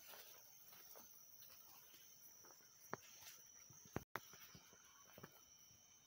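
Near silence: a faint, steady, high insect drone, broken by a few sharp clicks, the loudest about three and four seconds in. The sound drops out for an instant just after the second of these.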